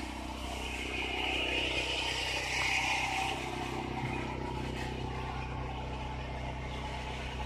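A steady low mechanical hum, with a rustling hiss between about one and three and a half seconds in and a light knock about four seconds in.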